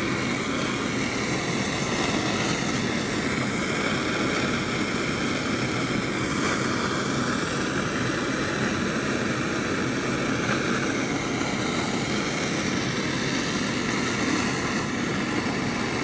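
Jeweller's soldering torch flame rushing steadily as it heats a large silver piece to flow the solder, with a workshop ventilation fan running.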